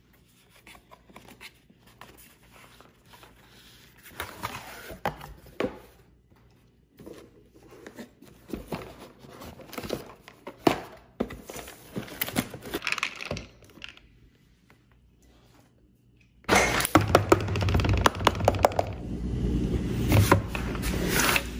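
A cardboard box being unpacked by hand: scattered knocks, taps and rustling as the flaps and cardboard inserts are handled and a boxed device is lifted out. About three-quarters of the way through, a much louder, steadier sound with a low hum starts suddenly.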